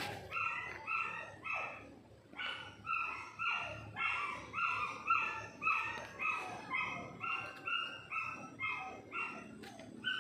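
A dog barking over and over, about two barks a second, with a short break about two seconds in.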